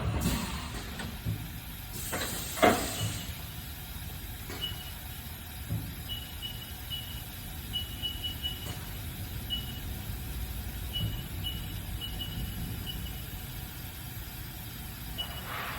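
Haas GM-2-5AX gantry CNC machine running, with a steady mechanical hum and one sharp clank a few seconds in. Short high-pitched chirps come on and off through the rest.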